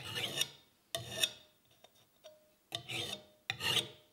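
Hand file scraping across the edge of a thin sheet-metal motor cover plate in about four separate strokes, the plate giving a short ringing note after some of them, as the plate is filed to a better fit.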